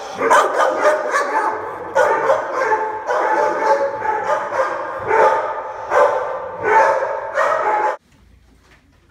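Dog barking over and over, about a bark a second. The barking cuts off suddenly about eight seconds in.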